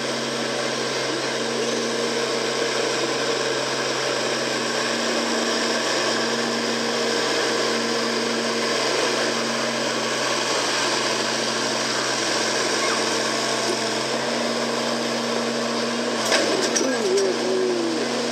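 Farm stock tractor engine running steadily under load while pulling a weight-transfer sled at a slow, even pace. Near the end the engine note drops off, followed by a few sharp clicks and a short call from a person.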